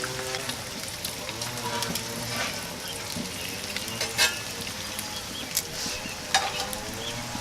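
Food frying on a hot cast-iron griddle: a steady sizzling hiss with scattered crackles and pops, a few of them sharper.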